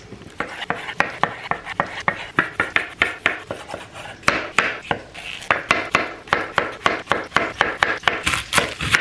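Chef's knife slicing cherry tomatoes and cucumber on a wooden cutting board, the blade knocking the board in a quick, regular run of strokes that grows louder near the end.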